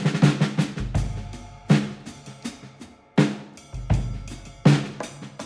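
Drum-led music: heavy drum hits about every second and a half over a low bass line, with lighter beats between them.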